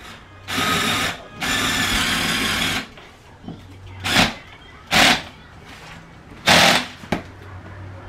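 Samsung refrigerator's door ice and water dispenser being worked, its motor whirring in two longer bursts in the first three seconds, then three short bursts.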